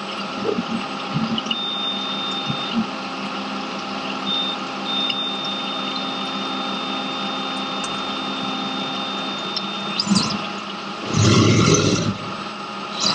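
Syil X7 CNC vertical mill machining a metal block under flood coolant: a steady wash of spraying coolant and machine noise with a thin high steady tone from the cut, which stops near ten seconds. A louder rushing burst lasting about a second follows near the end.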